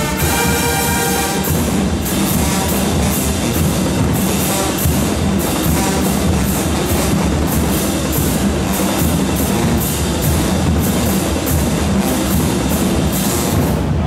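Marching band drumline playing a loud cadence of drums and crashing cymbals. The band's horns hold a chord that breaks off about a second and a half in.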